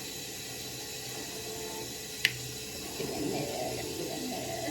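Water running from a tap into a sink, a steady hiss, with one sharp click a little over two seconds in.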